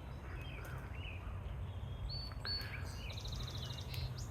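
Small wild birds chirping and calling, with a short steady whistle and a fast, rattling trill of about a dozen quick notes near the end. A steady low rumble runs underneath.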